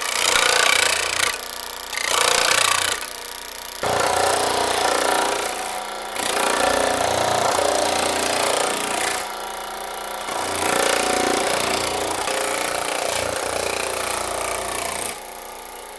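Baileigh PH-19 reciprocating power hammer running, rapidly hammering sheet metal with a thumbnail shrinking die. It runs in several bursts of a few seconds with short pauses between them.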